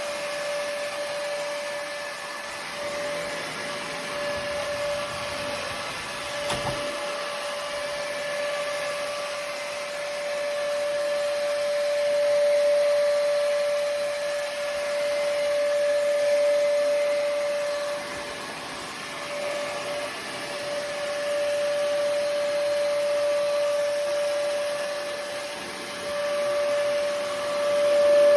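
ECOVACS DEEBOT T80 Omni robot vacuum running, its suction fan giving a steady whine over a rushing hiss that grows and fades a little as it moves. A short click comes about six seconds in.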